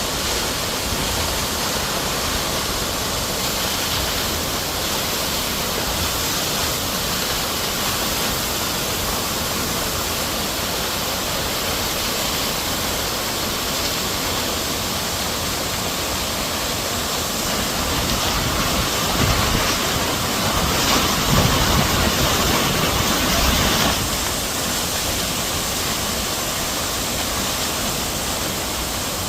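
Waterfall pouring, a steady rushing of falling water that swells briefly a little past the middle.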